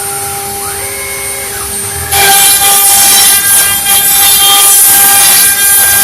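CNC wood-carving router running with a steady whine. A second motor whine rises, holds and falls as the machine moves, and then, about two seconds in, the cutter goes into the wood with a loud, rough cutting noise that keeps going with brief dips.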